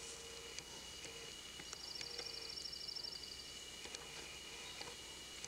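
A songbird's rapid, high-pitched trill lasting about two seconds, starting a couple of seconds in, over a faint steady high whine and outdoor background noise.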